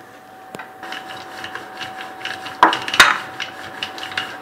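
Wooden rolling pin rolling out dough on a stone countertop, with light scraping and clicking and two sharp knocks about two and a half and three seconds in.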